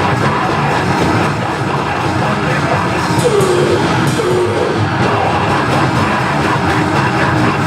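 Loud rock music, dense and steady throughout.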